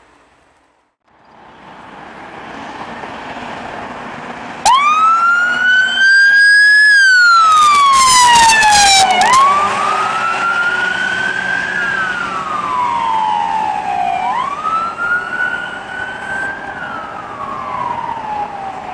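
Ambulance siren switching on abruptly in a wail, sweeping slowly up and falling back about every five seconds, over traffic noise. A loud blast of about two seconds overlaps the end of the first sweep.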